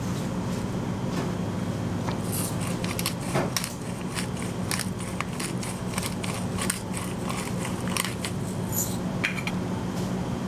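Pepper mill grinding black pepper over a salad bowl: a run of quick dry clicks and crackles that starts about two seconds in and stops shortly before the end. Under it there is a steady low hum.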